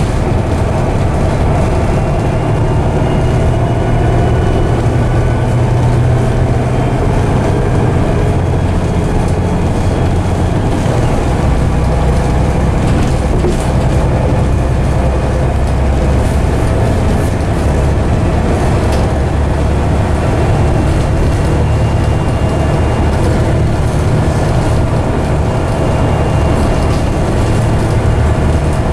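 Volvo D7C six-cylinder diesel engine of a Volvo B7TL double-decker bus running under way, heard inside the passenger saloon as a steady low drone over road and body rattle. The engine note eases off about ten seconds in, alongside a faint high whine that fades out, then picks up strongly again.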